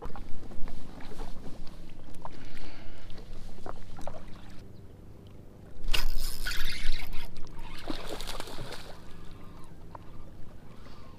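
Lake water lapping and sloshing against the hull of a drifting Sea-Doo personal watercraft, with a few sharp clicks from a spinning reel in the first few seconds. Two louder rushing bursts of noise come about six and eight seconds in.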